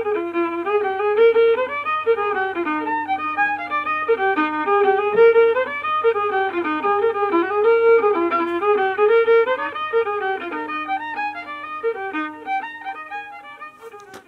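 Fiddle music: a fast tune of short, quickly changing notes, which cuts off suddenly at the end.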